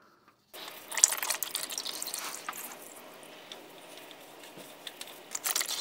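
Engine oil pouring from a spin-on oil filter as it is unscrewed by hand and splashing into the drain pan below. It starts suddenly about half a second in as a strong stream, thins to a trickle, and picks up again briefly near the end as the filter comes free.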